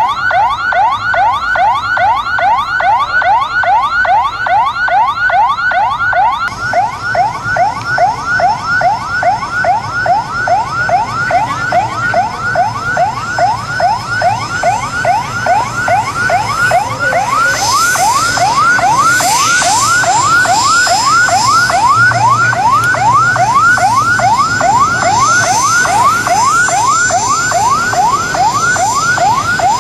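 Electronic siren sounding a fast yelp, a rising whoop repeated about three times a second without a break.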